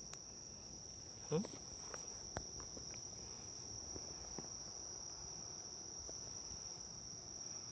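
Crickets singing in one steady, continuous high-pitched tone, with a brief low voice sound about a second and a half in.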